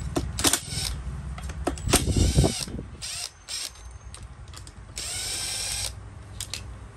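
Makita TD171D cordless impact driver running in short bursts as it backs out the muffler bolts on a brush cutter engine. There are brief bursts about half a second and two seconds in, the second one rattling as the driver hammers, and a longer run around five seconds in.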